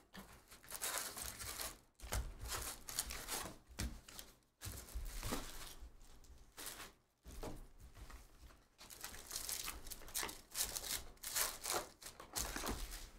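Trading card pack wrappers being torn open and crinkled by hand, in a run of rustling bursts with short pauses between them.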